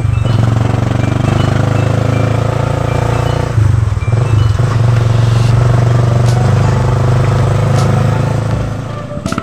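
A vehicle heard while riding in it: a loud, steady low drone of engine and road noise, dipping briefly about three and a half seconds in.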